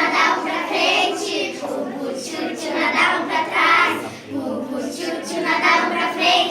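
Group of young children singing together.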